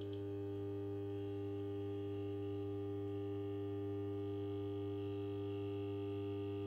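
Magnetic ballast of a 1961 Saunier Duval Carène street lamp humming steadily under power: an even mains hum with a strong low tone and fainter overtones. It hums really well, which the owner takes as the sign that there is no fault.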